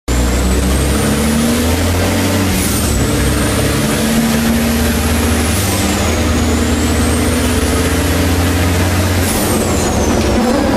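MAN race truck's turbocharged diesel engine running hard under load, heard from inside the cab. A high whistle climbs slowly and falls back three times, each fall marked by a short hiss of air.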